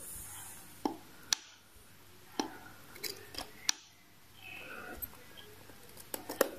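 Ceramic tweezers clicking and tapping against red-hot vape coils and the metal deck of a rebuildable dripping atomizer as the coils are pinched into shape while being fired to break them in. Irregular sharp clicks, with a quick cluster of them near the end.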